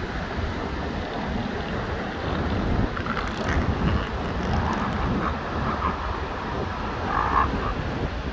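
Wind rumbling on the microphone over steady surf, with a few short calls from elephant seals on the beach about three, five and seven seconds in.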